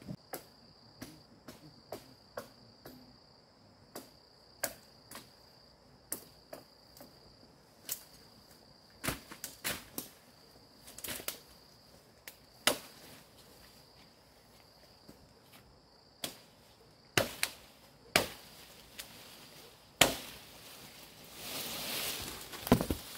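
Irregular sharp chopping blows of a blade on wood, some much louder than others, over a steady high insect trill. A longer hiss comes near the end.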